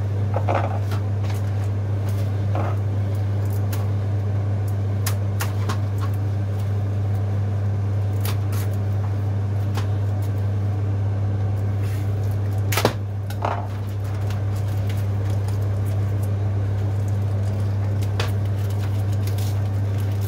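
A steady, low electrical hum, with scattered light clicks and one sharp knock about 13 seconds in.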